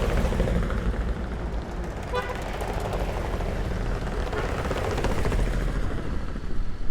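A vintage vehicle's engine running as it drives past, with a deep rumble that swells near the end, and a short pitched signal like a toot about two seconds in.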